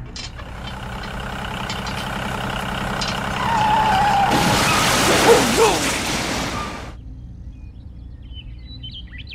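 A heavy vehicle's engine running steadily, with a loud hiss of air about four seconds in that lasts some three seconds and cuts off, after which the engine runs on more quietly.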